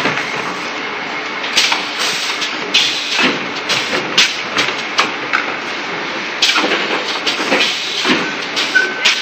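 Semi-automatic preformed-bag sanitary napkin packaging machine running, a steady mechanical noise broken by irregular sharp clacks and knocks from its moving parts as packs are pushed into bags.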